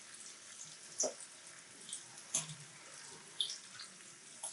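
Faint taps and clicks of a utensil handling fried potato slices on a bun, a few separate ticks over a low, steady hiss.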